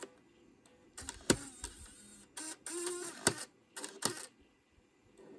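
Sharp clicks and short scraping rustles as parts of an iMac are handled. The loudest clicks come about a second in, near three seconds and near four seconds.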